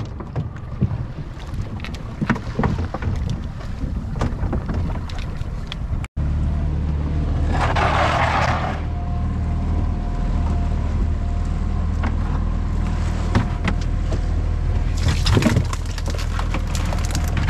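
A small fishing boat's outboard motor running steadily, heard as a low hum after a cut about six seconds in. Before it, sea and wind noise with scattered knocks and clicks. A short rush of noise about eight seconds in.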